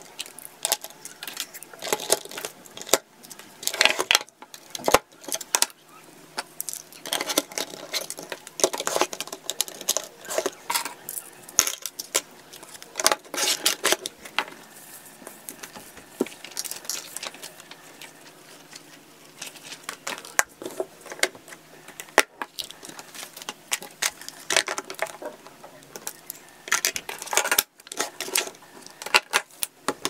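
Plastic drawer organizer trays, cables and chargers being handled and set down in a wooden drawer: an irregular clatter of small knocks and rattles of hard plastic and metal.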